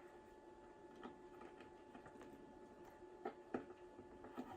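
Near silence with a faint steady hum, broken by a few faint clicks as small parts of a vintage electric lighter are handled.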